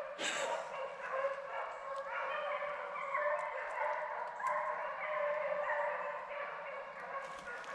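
A pack of deer hounds baying together on a running deer's trail, many voices overlapping without a break.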